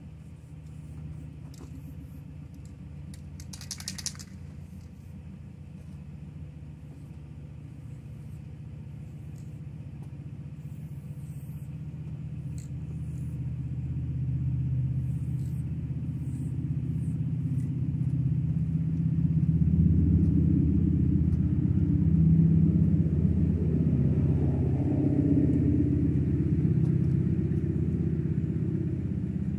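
A motor vehicle's engine rumbling, getting steadily louder over about ten seconds from the middle on and staying loud through the second half. About four seconds in, a short hiss of an aerosol spray can.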